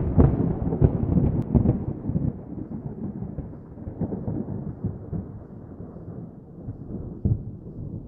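Distant thunder: a deep rumble that breaks in suddenly, rolls unevenly with several sharp peaks for about two seconds, then slowly dies away, with one more brief swell about seven seconds in.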